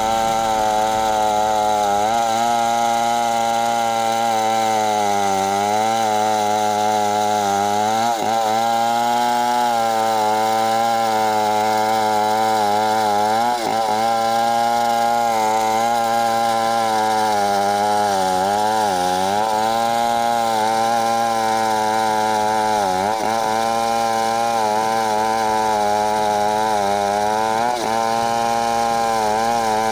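Large two-stroke chainsaw running at full throttle while ripping a thick hardwood timber lengthwise. Its pitch sags briefly every few seconds as the chain loads up in the cut, then picks back up.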